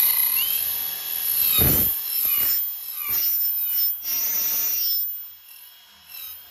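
Cordless drill spinning a small jet turbine's seized rotor by its front nut, the motor whine rising and falling in pitch as it speeds up and slows, with a couple of knocks. The rotor drags, which the crew takes for overheated turbine wheels rubbing the case. The drill stops about five seconds in.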